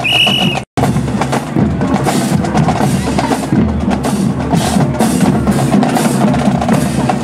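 A marching drum line playing a busy cadence on snare and bass drums. It follows a short, high, steady tone that cuts off under a second in.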